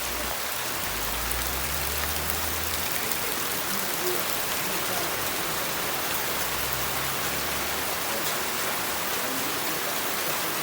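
Steady rain falling, an even hiss of many drops on surfaces.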